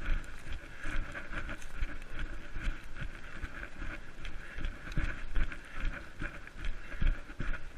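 Running footsteps through forest undergrowth, a thud roughly every half second, over a steady hiss.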